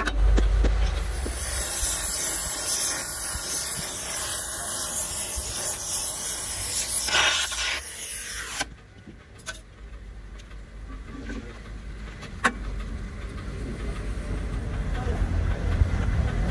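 Gas torch hissing as it heats a large spherical roller bearing to expand it for fitting onto a shaft, cutting off suddenly about eight and a half seconds in. Afterwards it is quieter, with one sharp click.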